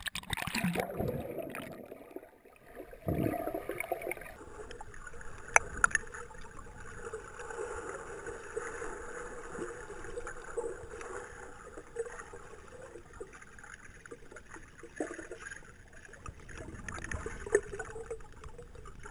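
Water sloshing and splashing around a GoPro 2 as it goes under the surface of a muddy stream, then steady muffled underwater noise heard through its waterproof housing, with a few sharp knocks.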